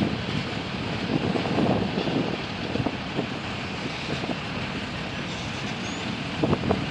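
Freight train of covered hoppers and boxcars rolling past: a steady rumble of wheels on rail with scattered knocks, two sharp ones near the end.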